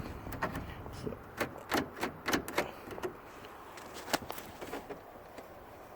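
Light, irregular clicks and scrapes of a bent-wire hook being worked inside a truck door, tapping against the window glass and door parts while it feels for the lock lever.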